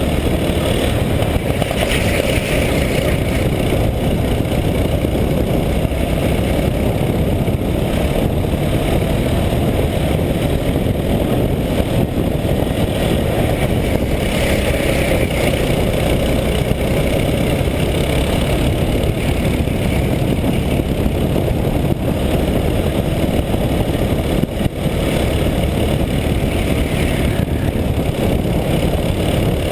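Racing kart's engine running continuously at speed, heard up close from a camera mounted on the kart, with a dense rush of noise. The engine note brightens a few times, about 2, 15 and 27 seconds in.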